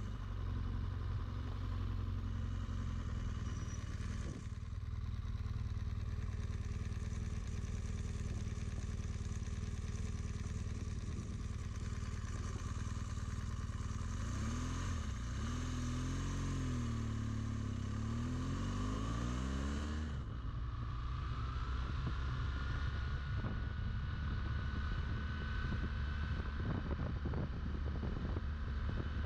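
BMW R1200GS flat-twin engine running while riding, its revs dipping and climbing again around the middle, with wind rushing over the microphone in the second half.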